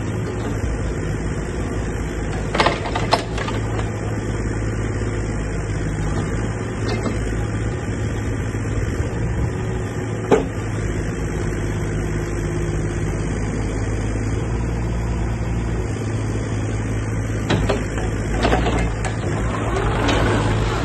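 JCB 8026 CTS mini excavator's diesel engine running steadily while its hydraulic boom and bucket are worked, with a few sharp clanks, two close together a few seconds in, one near the middle and a cluster near the end.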